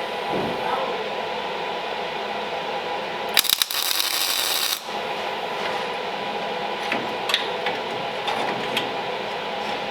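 Workshop tool sounds: a loud hiss starting about three and a half seconds in and lasting over a second, over a steady hum, with a few light metallic clicks later on.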